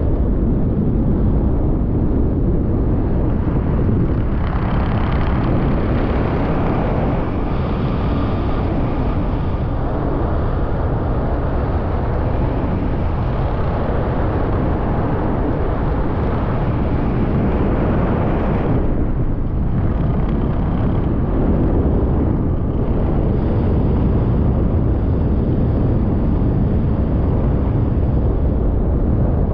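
Loud, steady low rumble with no speech. It grows fuller and brighter from about four seconds in and drops back at about nineteen seconds.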